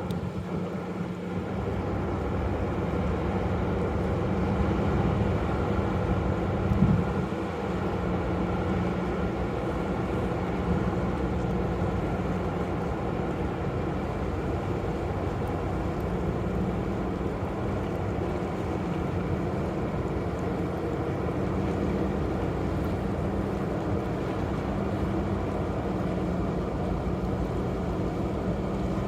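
Steady low drone of ship engines, with a constant hum underneath, from a vessel manoeuvring into port.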